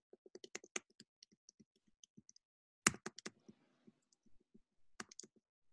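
Faint, rapid clicking of computer key presses: a quick run of many clicks, a louder cluster about three seconds in and another near the end, as a presentation is clicked through its slide builds.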